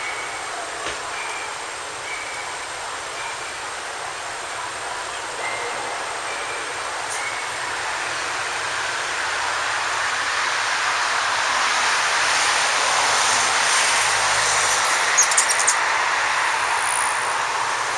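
Road traffic noise, a steady rushing that swells louder through the middle as a vehicle passes and then eases a little. Short faint high chirps sound early on, and a quick run of sharp high chips comes about fifteen seconds in.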